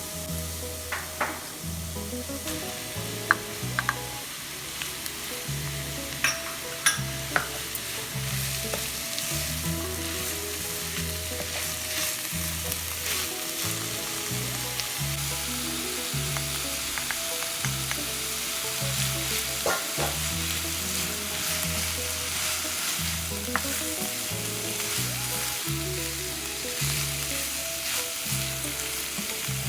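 Food sizzling as it fries in a pan while being stirred, with a utensil clicking against the pan several times in the first eight seconds.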